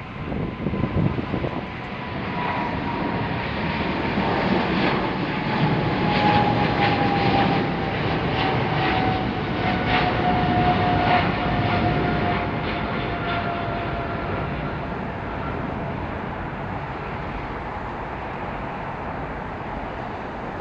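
A SWISS Boeing 777-300ER's twin GE90-115B turbofans run at takeoff thrust as the airliner climbs away. The roar builds over the first few seconds, crackles through the loudest part in the middle, then slowly fades. A whining tone falls steadily in pitch throughout.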